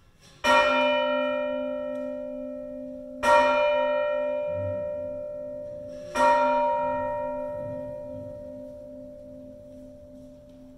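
A church bell tolled three times on the same note, a stroke about every three seconds, each ringing on and slowly dying away over a low pulsing hum.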